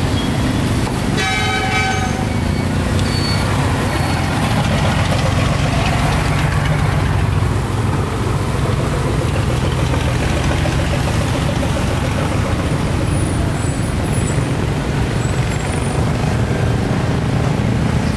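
Road traffic running with a steady low rumble of engines, and a vehicle horn sounding once for about a second, a little over a second in.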